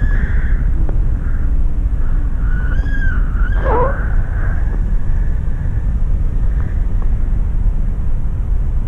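Wind rushing and buffeting over the microphone of a selfie-stick camera in flight under a tandem paraglider, a steady heavy low rumble. About three seconds in a brief wavering high tone rises and falls, followed by a quick falling sweep.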